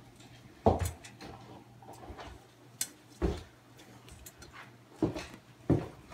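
A blacknose tegu feeding from a metal bowl: about five sharp knocks and clunks as it bites at the meat, the first, under a second in, the loudest.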